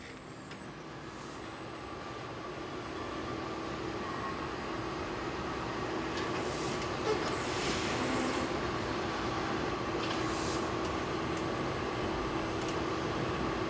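Car assembly plant machinery running with a steady hum and whine, growing slowly louder; a brief high-pitched whine joins about seven seconds in.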